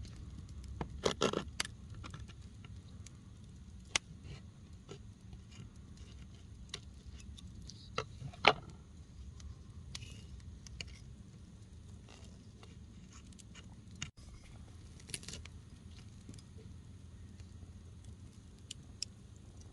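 Campfire crackling over a low steady rumble, with scattered sharp clicks and light scrapes. There is a quick cluster of clicks about a second in, and the loudest single click comes about eight and a half seconds in.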